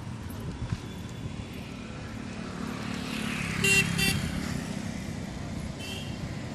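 Road traffic going by, a vehicle getting louder as it passes about three to four seconds in, with two short horn toots close together; a fainter toot follows about six seconds in.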